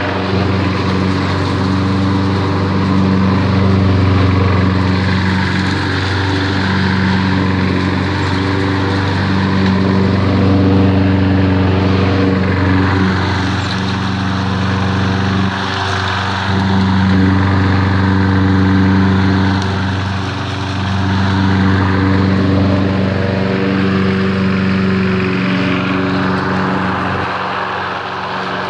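Toro Recycler walk-behind lawn mower's engine running steadily while mowing. It grows louder and softer as the mower passes back and forth, fading a little near the end.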